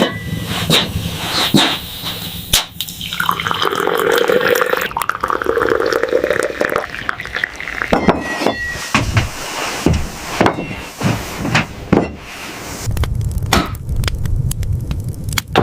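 Water pouring and splashing, with scattered clicks and knocks.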